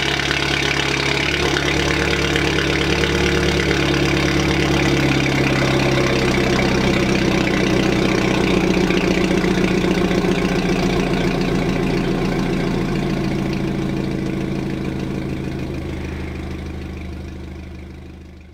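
2015 BMW 228i's N20 turbocharged four-cylinder engine idling steadily through a catless downpipe, resonator delete and M235i M Performance exhaust, a deep, even note at the tailpipes. The sound fades out over the last few seconds.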